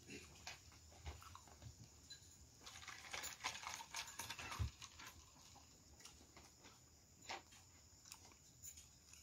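Fizzy soda poured from a two-litre plastic bottle into a plastic cup, a splashing, fizzing pour of about two seconds, ending in a low thud as the bottle is set down. A few faint clicks before and after.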